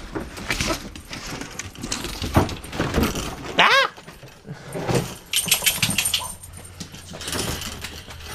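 Pet dogs moving about and making small noises, with a quick run of jingling about five seconds in.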